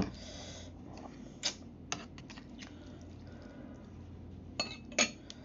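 A metal fork clicking and tapping against a bowl of noodles as they are stirred and picked up, in scattered light clinks, with two sharper ones near the end.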